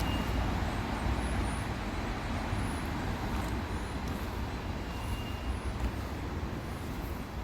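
Steady rumble of road traffic, with a few faint high chirps over it.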